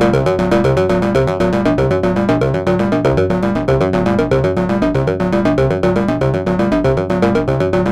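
Buchla Music Easel synthesizer with a VCS3 oscillator card, playing a rapid, repeating pattern of short electronic notes over low, stepping bass notes.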